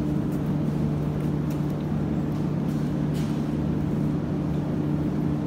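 Em-series (81-501/502/503) metro train standing at a platform with its doors open, its equipment giving a steady low hum of two even tones, with a few faint clicks over it.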